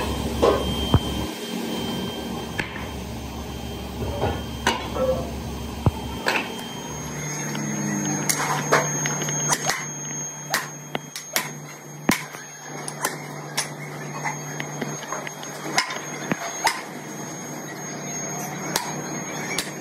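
Workshop work in a cast iron valve factory: irregular sharp knocks and clanks of tools on metal over a steady machine hum. The hum shifts abruptly a few times.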